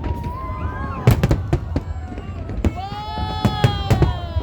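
Aerial fireworks exploding: a string of sharp bangs and cracks, several close together about a second in and more after the middle, over a steady low rumble.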